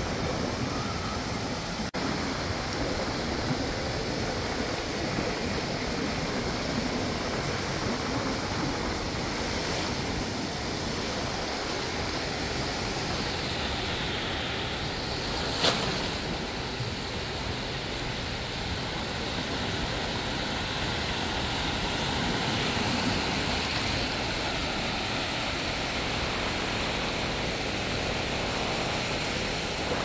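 Small waves breaking and washing up on a sandy shore, a steady rush of surf, with a single sharp click about halfway through.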